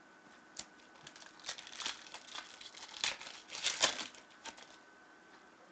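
Foil wrapper of a 2014 Panini Prizm World Cup trading-card pack crinkling as it is torn open by hand. The crackly rustling comes and goes and is loudest about three to four seconds in.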